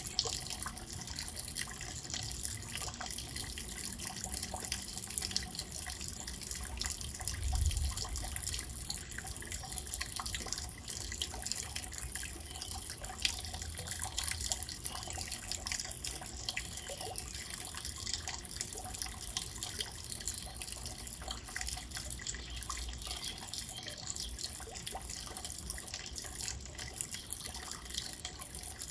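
Steady rain falling, a dense patter of drops and drips, with a brief low rumble about eight seconds in.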